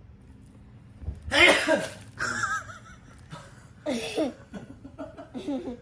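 A man's loud sneeze, a single explosive burst about a second and a half in, then brief voices.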